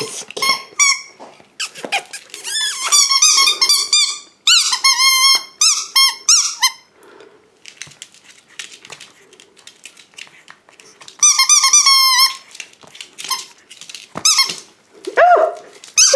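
Rubber squeaky ball toy being squeezed over and over, in three quick runs of rapid, high squeaks, the last about eleven seconds in.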